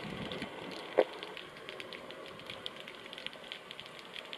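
Underwater sound picked up by a submerged action camera: a dense, irregular crackle of fine clicks, with one sharper knock about a second in.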